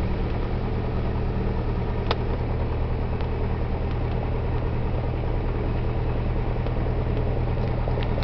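Cessna 172F floatplane's 180 hp engine idling steadily at low propeller speed while taxiing on the water. A single faint click about two seconds in.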